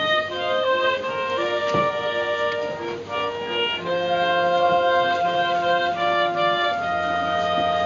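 A clarinet ensemble, bass clarinet among them, playing a piece in several parts: held notes that move together from chord to chord, with a low part coming in about four seconds in.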